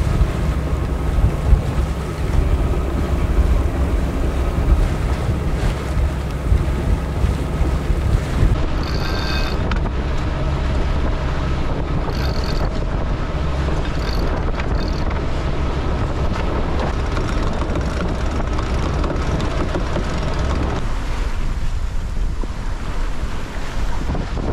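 Wind buffeting the microphone over the steady rush of water as a sailing yacht moves fast through choppy sea, its bow wave and wake foaming past the hull. The heavy low wind rumble eases near the end.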